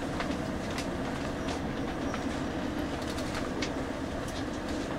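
KTR8000 'Tango no Umi' diesel railcar rolling slowly along the platform, heard from inside the passenger cabin: a steady low rumble with wheels clicking over the track joints a few times a second.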